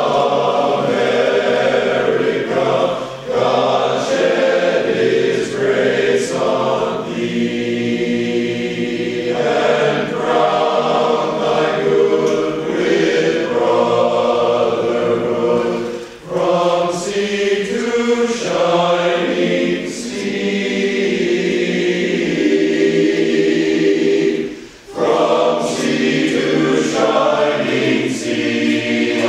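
Men's chorus singing unaccompanied, in long sustained phrases with brief breaks between them.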